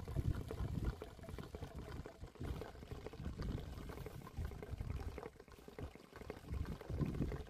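River water sloshing and gurgling in uneven surges.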